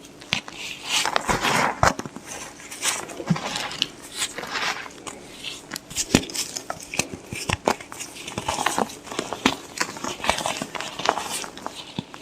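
White gym chalk blocks being crushed and crumbled, giving irregular crisp crunches and crackles mixed with soft powdery crumbling.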